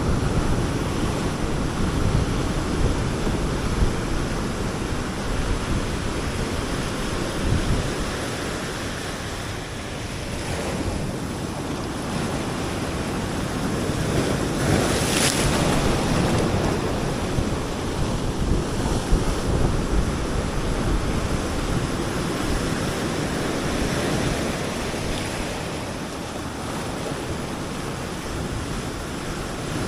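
Ocean surf breaking and washing on the beach in slow swells, one wave crashing louder about halfway through, with wind buffeting the microphone.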